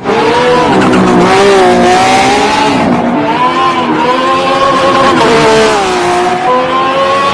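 Racing car engine revving at high speed, its pitch dipping and rising several times over a hiss of tyre noise, starting and cutting off abruptly.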